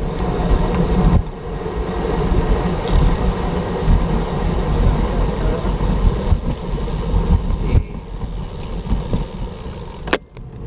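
Wind buffeting the microphone of a moving bicycle, a heavy low rumble with road noise mixed in, with a few sharp clicks near the end.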